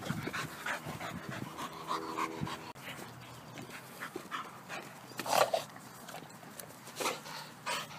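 Pit bull terrier panting quickly and hard while playing, with a few sudden louder scuffs and knocks in the second half, the loudest about five seconds in.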